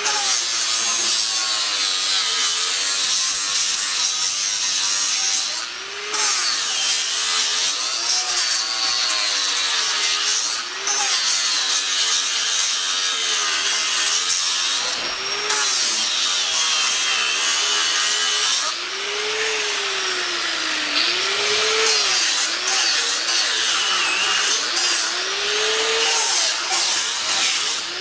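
Handheld angle grinder grinding down a rough cut on a steel dozer blade to clean it up for welding. The motor's pitch sags and recovers again and again as the disc bites into the steel and is eased off, over a steady hiss of abrasive on metal, with a few very short letups.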